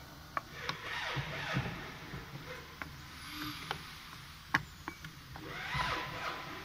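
Handling sounds from a T-handle hex wrench on the metal fittings of a CNC router's rotary axis: scattered light clicks and scrapes, with one sharp click about four and a half seconds in.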